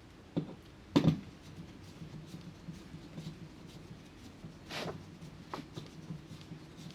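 Flathead screwdriver working the painted mounting screws of an old wall outlet: a sharp click about a second in, a short scrape near five seconds and a lighter click after it, as the outlet is worked loose from its box.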